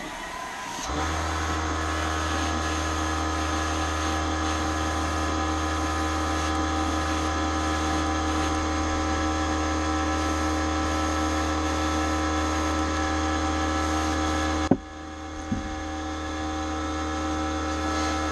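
Small airbrush compressor motor starting about a second in and running with a steady hum. A sharp click about fifteen seconds in briefly drops the level before the hum builds back up.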